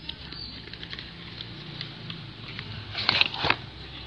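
Small clicks and taps of slime ingredient containers being handled, with a louder cluster of clicks about three seconds in.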